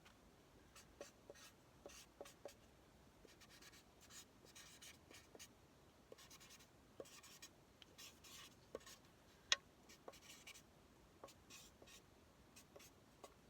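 Faint strokes of an alcohol marker tip scratching across parchment paper, a run of short quick strokes with light ticks that come thickest in the middle, and one sharper tick past the middle.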